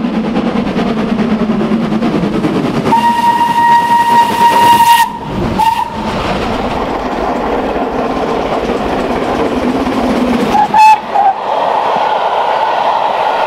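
Steam locomotive running with a steady rush of exhaust and motion noise. A steam whistle sounds one long note about three seconds in and cuts off suddenly two seconds later. A brief whistle follows, and a short whistle with a sharp click comes near eleven seconds.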